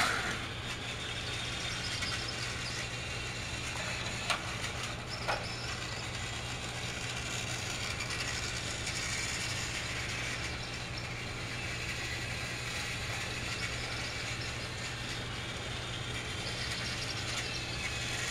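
Battery-powered Thomas TrackMaster toy trains running on plastic track: the steady whir of their small motors and wheels. There are two sharp clicks about four and five seconds in.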